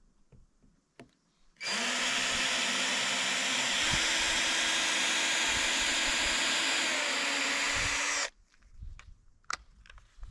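A power drill runs steadily for about seven seconds, starting a second and a half in, its pitch stepping up slightly partway through, then stops suddenly. A few faint knocks come before and after.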